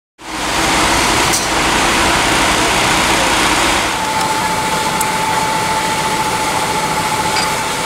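Fire truck engine running steadily, a constant mechanical hum with a higher steady whine coming in about halfway through.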